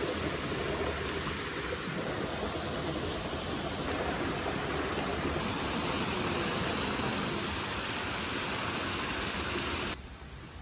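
A small rocky stream rushing and splashing steadily over mossy boulders. It cuts off suddenly near the end, leaving a much quieter outdoor background.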